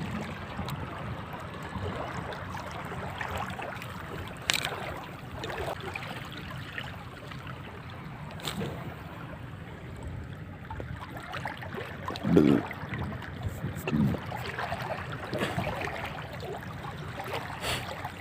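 Sea water lapping and splashing steadily, with a few sharp clicks and two short low thumps about two-thirds of the way through.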